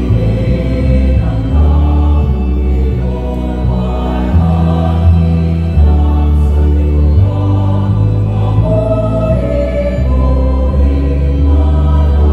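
Choir singing a hymn to the Virgin Mary in harmony, over long held low bass notes that change every second or two.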